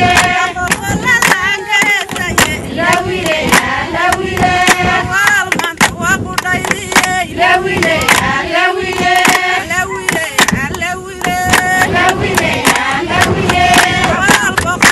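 A group of people singing together for a dance, with sharp hand claps coming through all along.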